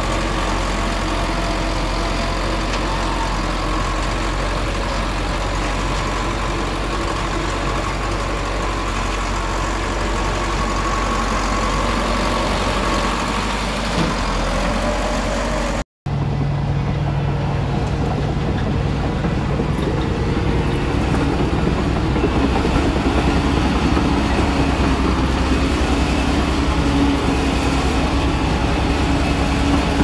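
Komatsu D20P crawler bulldozer's diesel engine running steadily as it works. The sound drops out for a moment about halfway through, then resumes with a slightly different, deeper tone.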